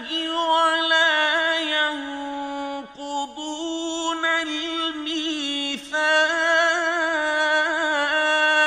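A man reciting the Quran in Arabic, holding long, ornamented melodic notes with a wavering vibrato, a drawn-out chanted vowel of the recitation. The line breaks off briefly about three seconds in and again near six seconds, then resumes on a sustained note.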